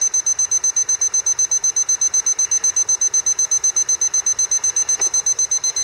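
Digital cooking thermometer's alarm beeping rapidly, about nine high-pitched beeps a second, then cutting off suddenly near the end. It signals that the water has reached 212 °F, the boil.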